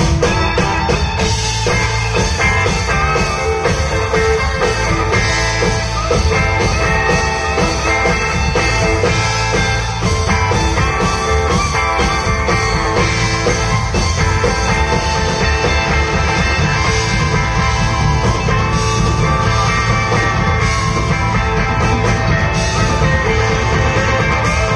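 Live country-rock band playing: electric guitars over drums and bass, with a lead guitar line of bending notes.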